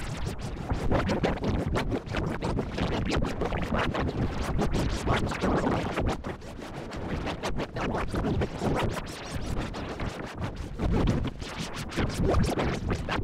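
Heavily distorted, digitally processed commercial audio: a harsh, scratchy noise chopped into rapid stutters, with music under it.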